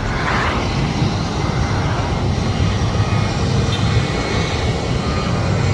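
Car driving on a highway: steady road and engine noise with a low rumble.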